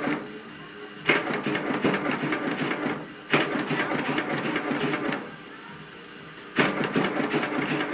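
Motorised incense-stick machine clattering rapidly in runs of about two seconds with short pauses between, as it pushes out paste-coated incense sticks.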